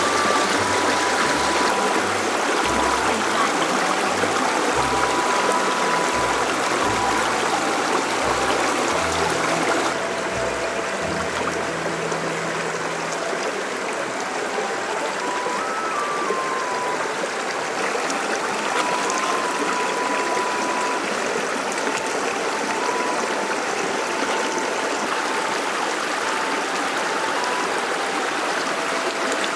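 Steady rushing of a stream of running water, with soft background music: a slow, simple melody, with low bass notes that stop about halfway through.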